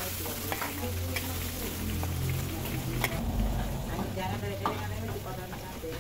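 Food frying and sizzling in a wok as it is stirred, with a few sharp taps of the utensil against the pan over a steady low hum.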